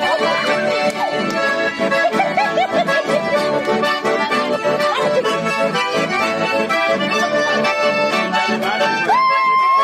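Accordion-led Argentine folk music (chamamé) playing with a busy melody over a steady beat. Near the end a long, high shout rises and holds: a sapukay.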